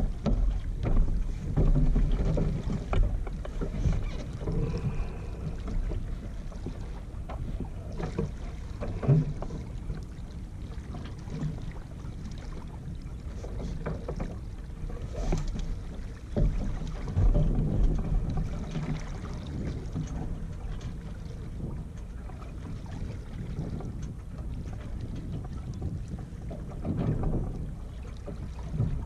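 Wind gusting on the microphone aboard a Yamaha 24 sailboat sailing slowly in a light breeze, loudest near the start and again a little past the middle, with water along the hull and occasional knocks and clicks as lines are handled on deck.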